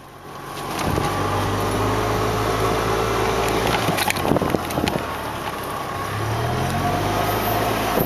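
A golf cart running steadily as it drives across a pasture towing a logging-chain drag; it grows louder over the first second and picks up a little in pitch near the end. A few sharp knocks and rattles come about four to five seconds in.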